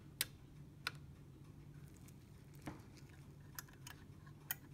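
A few faint, irregular light clicks from the brass calendar mechanism of a double pendulum clock being handled, over a low steady hum. No release follows: the calendar has locked up instead of dropping back.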